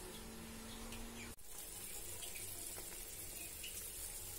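Curry gravy simmering at the boil in a pan on the stove, a faint, steady bubbling hiss that comes in after a cut about a second in.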